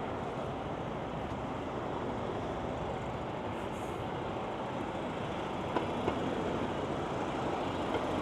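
Steady rumble of passing vehicles in a city street, growing slightly louder toward the end, with two faint ticks about six seconds in.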